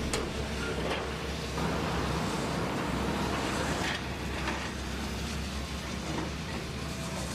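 Heavy Hitachi Zaxis demolition excavators' diesel engines running with a steady low rumble, with a few sharp knocks from the grabs working metal and concrete debris.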